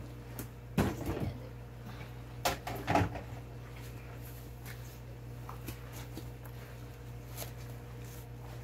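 Gloved hands mixing and squishing kimchi seasoning and shredded vegetables in a large plastic basin, with small rustling clicks and two louder knocks about one and three seconds in, over a steady low hum.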